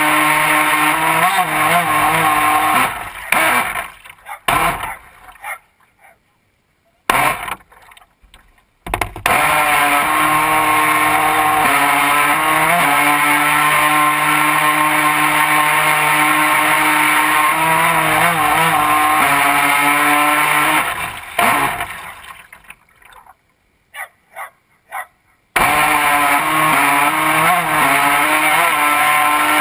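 Radio-controlled boat's motor running at a steady pitch. It fades out to near silence about three seconds in and comes back abruptly near nine seconds, then drops out again from about 21 to 25 seconds.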